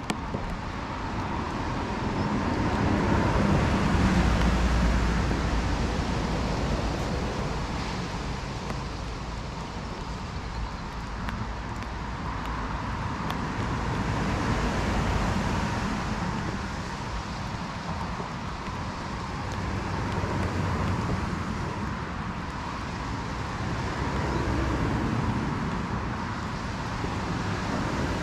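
Steady outdoor rumble of distant road traffic, swelling and fading three times.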